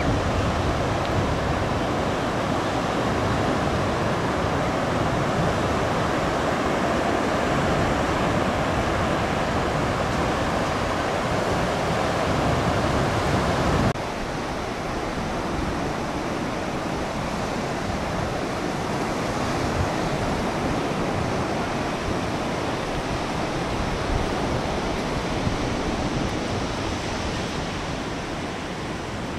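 Ocean surf breaking and washing up on a sandy beach: a steady rush of waves. It drops suddenly to a slightly quieter rush about halfway through.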